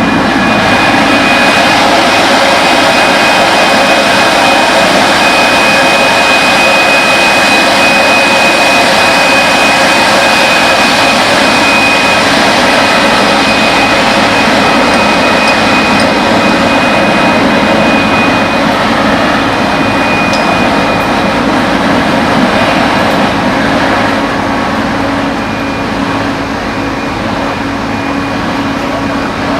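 Boart Longyear LX11 drill rig running steadily under load during reverse-circulation drilling: loud, constant machinery noise with a steady high whine over it, easing slightly about 24 seconds in.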